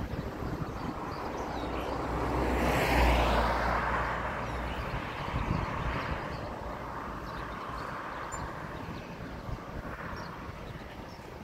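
A vehicle driving past. Its noise swells to its loudest about three seconds in and then fades away.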